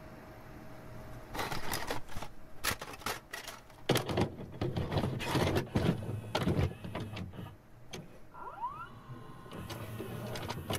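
Irregular computer-keyboard typing clicks over a faint hiss, with heavier keystrokes in the middle. A brief rising chirp sounds near the end.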